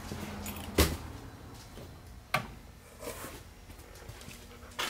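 An interior door being handled and opened: a few separate sharp knocks and clicks, the loudest about a second in.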